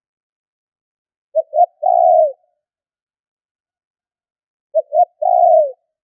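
Spotted dove (a caged decoy "cu gáy") cooing twice. Each call is two short notes followed by a longer note that drops in pitch at the end.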